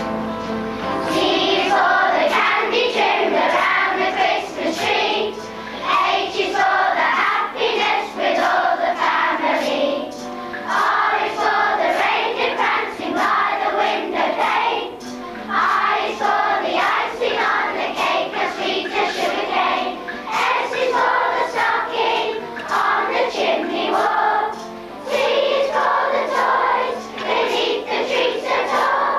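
A children's choir singing a song in phrases of a few seconds, with short breaks between lines.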